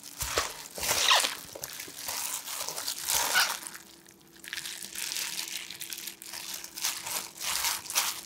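A plastic-gloved hand tossing cockles, spring cabbage leaves and shredded carrot with gochujang sauce in a stainless steel bowl: irregular wet squishing and leafy rustling, with the crinkle of the plastic glove.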